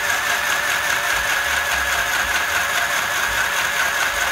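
Small 6-volt mini sewing machine running steadily, stitching through a double layer of canvas: a steady high motor whine with a fast rhythmic clatter of the needle. It starts up abruptly.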